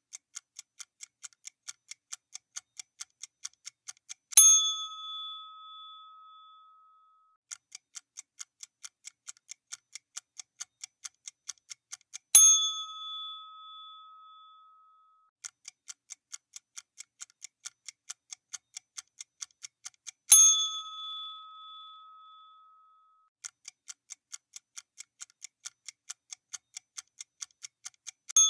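Quiz countdown sound effect: a clock ticking fast and evenly for about five seconds, ending in a single bright bell ding that rings out and marks time up. The pattern of ticks and ding repeats four times, with the last ding coming right at the end.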